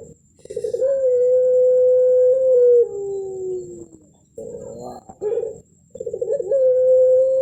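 Puter pelung, a Barbary dove bred for cooing contests, giving its long 'melung' coo. A stuttering start leads into a long held note whose end drops lower. A short wavering call about four and a half seconds in is followed by another long coo starting near the end.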